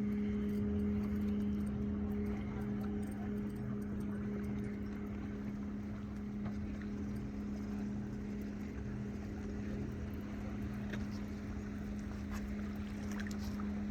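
Boat motor running steadily at a constant pitch, a low even hum.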